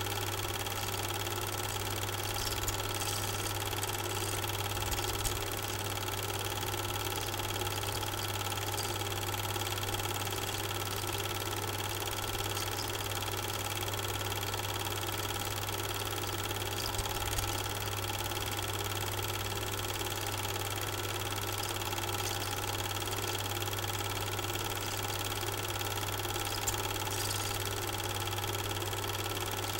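Super 8 film projector running: a steady motor hum and whir that never changes, with a few faint ticks.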